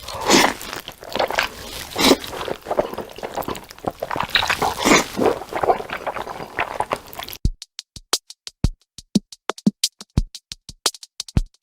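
Close-miked eating of black bean noodles: loud wet slurps and chewing, followed about two-thirds of the way in by a quick run of sharp, separate mouth clicks and smacks with silence between them.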